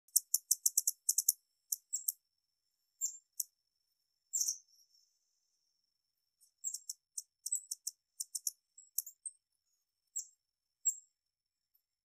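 Hummingbird giving sharp, very high-pitched chip notes: a quick run at the start, then scattered chips and short runs, with a pause of about a second and a half midway.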